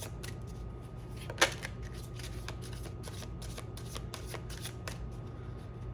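Deck of oracle cards being shuffled by hand: a quick, continuous run of soft card clicks and flicks, with one sharper snap about a second and a half in.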